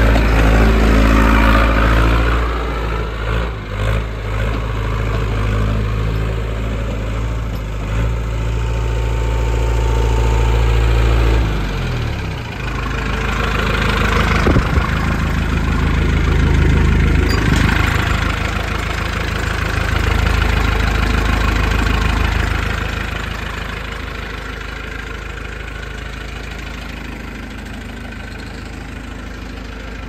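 Case 1845C skid steer's diesel engine running loudly. Its pitch drops about twelve seconds in as the engine slows, and it settles quieter toward idle over the last several seconds.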